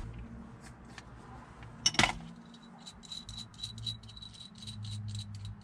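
Hand ratchet with a 14mm socket, clicking in quick, even strokes as it works a fastener, after a single sharp metal click about two seconds in.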